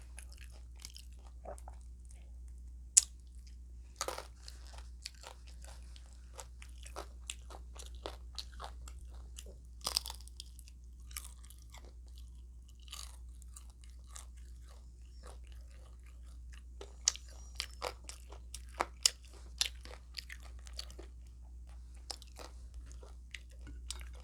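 Close-miked mouth sounds of someone eating breakfast food: irregular crunching and chewing clicks, some much sharper than the rest, over a steady low hum.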